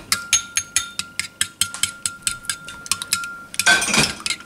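Metal spoon beating egg and milk in a ceramic bowl: a quick, even run of clinks, about five a second, with the bowl ringing faintly under them. Near the end the clinks give way to a louder, rougher clatter.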